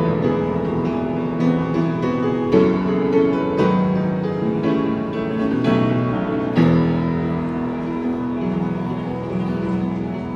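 Upright piano played in an improvising style: held chords over a moving bass line with a melody on top, and a few chords struck hard, the strongest about six and a half seconds in.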